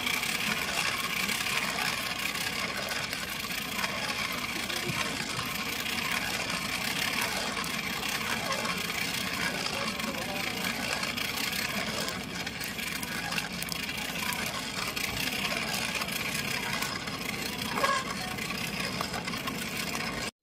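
Hand-cranked blower whirring steadily as it is turned, forcing air into the charcoal fire under roasting corn cobs.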